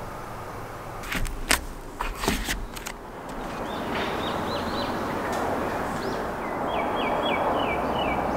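Outdoor ambience: a steady rushing background, a few sharp knocks between about one and three seconds in, and a small bird singing a quick run of short repeated notes twice, near the middle and near the end.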